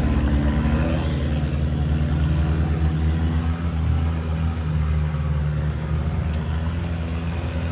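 Toyota Land Cruiser's 1.9 TDI turbodiesel engine running steadily under load as the truck crawls up a rocky slope, a low, even engine note.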